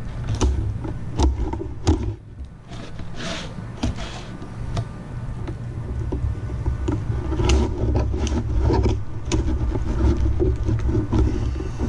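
Fillet knife working along a tilefish as it is skinned: scattered sharp clicks and scraping, over a steady low rumble.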